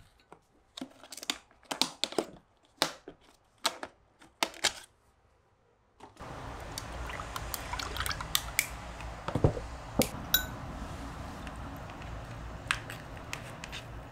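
Plastic takeout food container being handled and opened, with a quick run of sharp clicks and crackles. After a brief lull, a steady room hum sets in, with a few light clinks of a metal spoon in a bowl of rice.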